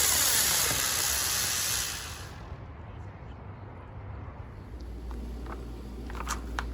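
Mad Ox smoke drone helicopter, a daytime aerial spinner firework, hissing loudly as it spins up into the air. The hiss cuts off about two seconds in.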